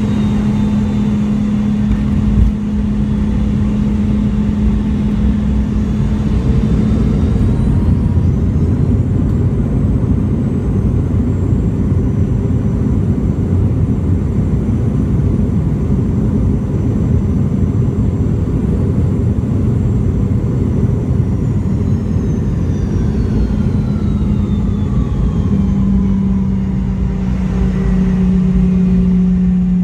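Boeing 717-200's rear-mounted Rolls-Royce BR715 turbofan running, heard through the cabin wall as a steady low hum with a high whine. The whine rises about a quarter of the way in, holds, then falls away again in the last third as the engine spools up and back down.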